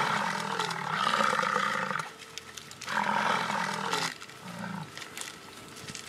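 American bison bellowing during a fight: a long, low roar that ends about two seconds in, a second about three seconds in, then shorter, quieter grunts.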